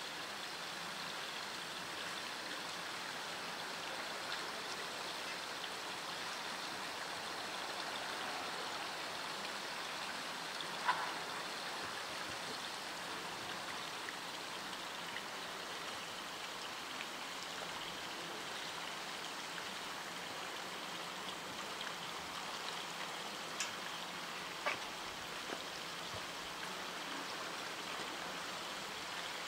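Steady rush of running water, even and unbroken, with a few short knocks; the clearest comes about eleven seconds in.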